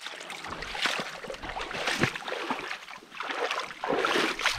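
Hiking boots splashing through shallow water and mud among rocks, several steps in a row, loudest near the end.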